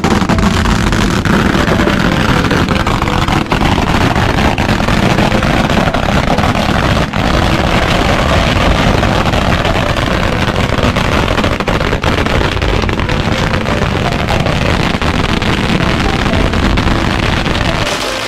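Long strings of firecrackers (bianpao) going off in a loud, dense, unbroken crackle, lit to set fire to the pile of joss paper under the king boat.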